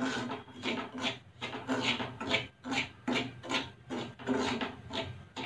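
A spatula stirring and scraping coarse salt in a kadhai, a regular run of gritty rasping strokes a little over two a second. The salt is being heated on full flame, for roasting peanuts in it.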